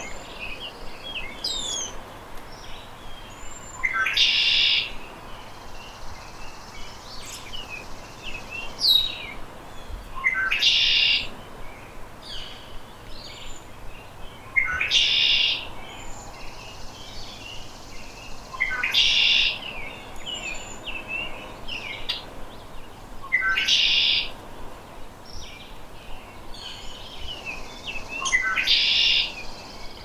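Male red-winged blackbird singing its conk-la-ree song six times, about every four to five seconds. Each song is a few short notes leading into a shrill buzzy trill about a second long, and the trills are the loudest sounds.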